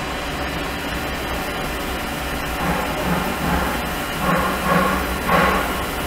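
Liquid-circulation pump and water flowing through a stainless ultrasonic cleaning tank, a steady hum with hiss. A run of louder, uneven pulses joins in about halfway through.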